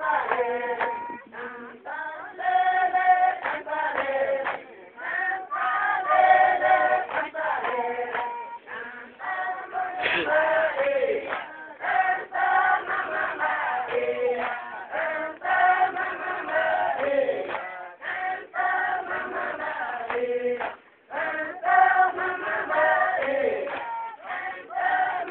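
A large group of men and women singing together in phrases separated by short breaks.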